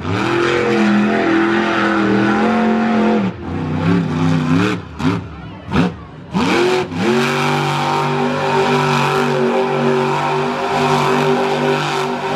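Monster truck engine revving hard. Its pitch climbs in surges with two brief lifts off the throttle in the first half, then holds at high revs for the last five seconds or so.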